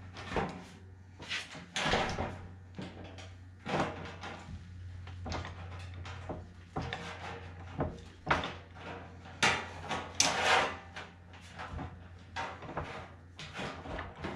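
Hand-lever bench shrinker-stretcher working the edge of a steel dash panel: irregular metallic clacks about once a second as the jaws bite and release, with the sheet metal rattling, putting crown into the panel.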